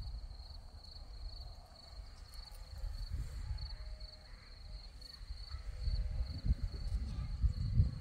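Crickets chirping in a steady, high, pulsing trill, with a low rumble of wind on the microphone that gets louder in the second half.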